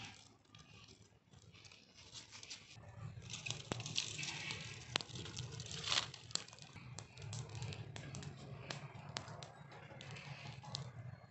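Dry twigs and sticks rustling and clattering as they are piled onto a small open wood fire, with sharp crackles and snaps throughout.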